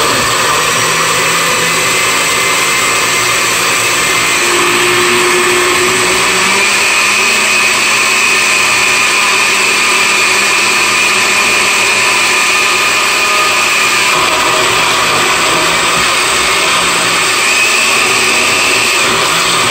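Oster countertop blender with a glass jar running on its low smoothie setting, its motor whirring steadily as the blades churn frozen pineapple chunks, oranges and juice. Its whine shifts in pitch a couple of times as the load changes.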